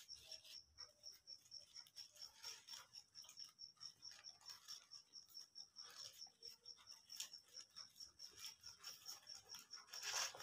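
A cricket chirping steadily in short high-pitched pulses, about four to five a second. Over it, paper and tissue wrapping rustles and crinkles as a shawarma is unwrapped, loudest near the end.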